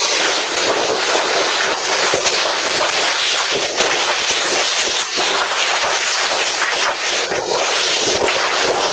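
Heavy hail pelting down, a loud, steady clatter of countless hailstone impacts.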